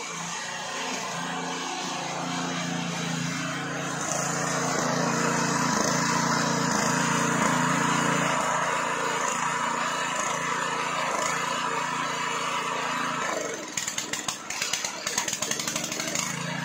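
Small petrol engine driving a water-well drilling rig's drill bit, running steadily with a rhythmic pulse. Near the end there are a couple of seconds of rapid crackling.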